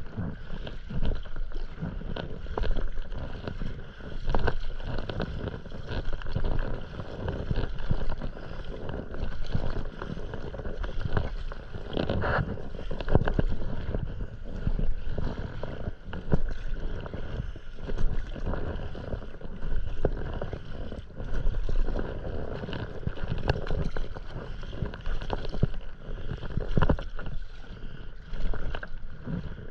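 Stand-up paddleboard paddle strokes through calm sea water: the blade dips and pulls with a splash and gurgle, repeating about every one and a half seconds.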